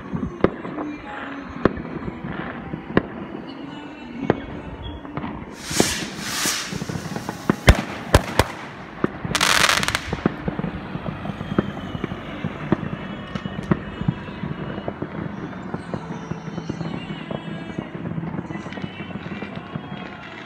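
New Year fireworks going off all around: a constant patter of distant bangs and pops, with two rushing hisses about 6 and 10 seconds in and a cluster of sharp, loud bangs just before the second hiss.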